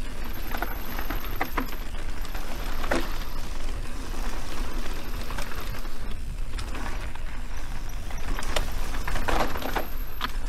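Mountain bike riding down a rough trail: steady wind rumble on the microphone with repeated rattling and sharp clicks from the bike jolting over the ground.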